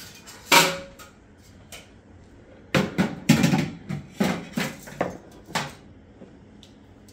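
A series of knocks and clatters: a sharp one about half a second in, then a quick run of about eight from about three to six seconds in.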